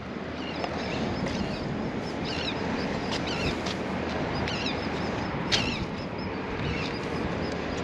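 Steady open-air background noise with a bird chirping in short bursts several times over it, and a single sharp click about five and a half seconds in.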